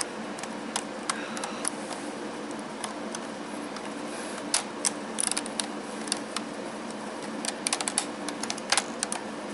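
Irregular light clicks and taps of small metal parts being handled as a bus bar is fitted across the terminals of Nissan Leaf battery modules, with a few quick clusters of clicks partway through and near the end.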